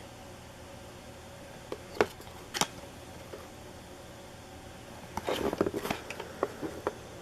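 Hands handling trading cards and their foil packs: two sharp clicks about two seconds in, then a burst of rustling and tapping from about five seconds in, over a steady low fan hum.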